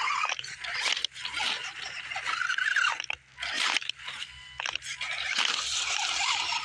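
Small RC rock crawler's electric motor and gears whining, rising and falling in pitch, with its tyres crunching and scraping over rock and repeated sharp clicks.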